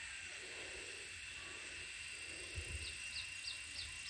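Outdoor garden ambience: insects droning steadily at two high pitches, with a bird giving four quick descending chirps about three seconds in.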